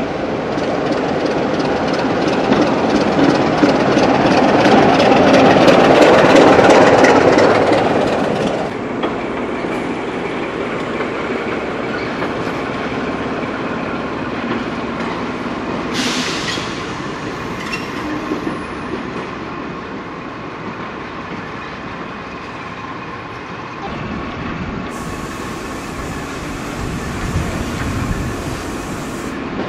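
Class 25 diesel locomotive running in on the platform road, its engine and wheels growing louder to a peak about six seconds in before cutting off. Then a diesel shunter running slowly over the pointwork, with high wheel squeal and clattering over the rail joints.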